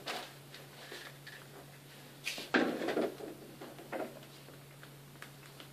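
Rummaging among bags hanging in a wardrobe: a few short knocks, clinks and rustles as a laminated plastic shopping bag is taken down by its handles, the loudest cluster a little over two seconds in.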